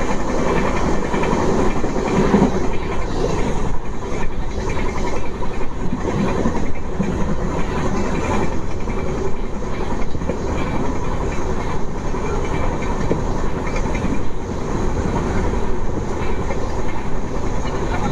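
A passenger train running along the track, its wheels rumbling steadily on the rails with a faint clatter.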